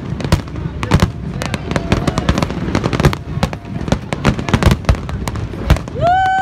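Aerial fireworks display: a quick, irregular run of shell bursts and crackling bangs. Near the end, a drawn-out whoop rises and falls over the bangs.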